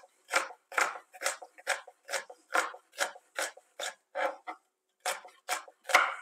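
Knife finely dicing a kapia red pepper on a cutting board: even chops at about two and a half a second, with a short pause a little past the middle.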